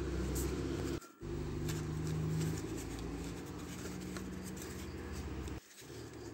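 Steady low background hum with faint rustles and taps of hands handling a cardboard craft piece. The sound cuts out completely for a moment about a second in and again near the end.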